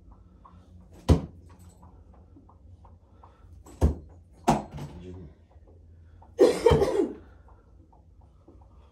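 Three sharp knocks, about a second in and twice around the four-second mark, then a short noisy burst lasting under a second near the seventh second.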